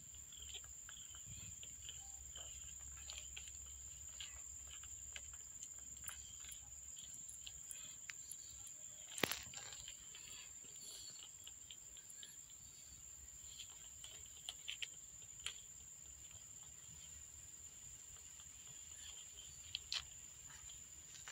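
Faint soft rustles and small clicks as a mother cat licks and nuzzles her newborn kittens on paper, over a steady faint high whine, with one sharper click about nine seconds in.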